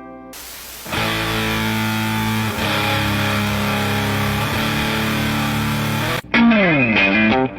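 Electric guitar played through an improvised, object-based signal path, giving a fuzzy, distorted tone. A hiss comes in first, then a chord rings out under a heavy noisy haze. About six seconds in it cuts off, and a louder phrase follows with a downward slide and picked notes.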